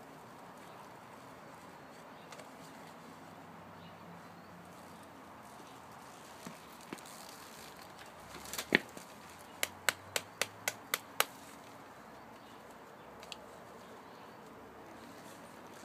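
Cigarette lighter being flicked to light a cigarette: one loud click, then a quick run of about seven sharp clicks, about four a second.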